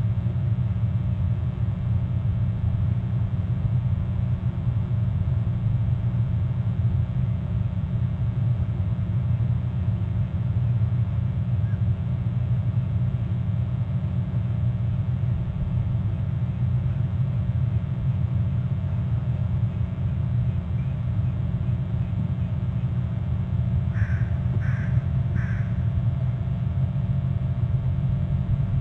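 A steady low rumble, with a crow cawing three times in quick succession near the end.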